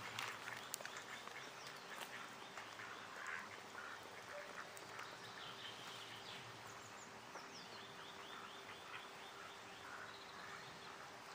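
Faint bird calls: ducks quacking, mixed with small birds' high chirps and a quick trill a little past the middle.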